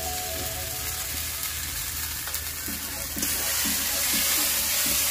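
Masala of onion and ginger-garlic paste sizzling in hot oil in a wok as tomato paste goes in and is stirred with a spatula. The sizzle gets louder about three seconds in, with short scrapes of the spatula.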